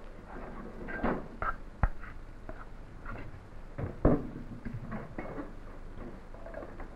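Scattered soft taps and knocks of hands working a soft pizza dough and handling a mixing bowl on the counter. There is a sharp knock about two seconds in and a louder one about four seconds in, as the bowl is set down.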